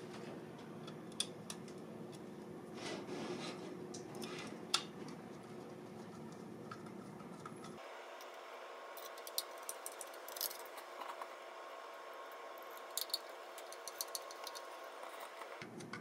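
Faint clicks and small scrapes of a screwdriver driving screws into the metal bracket on a laptop SSD, scattered irregularly.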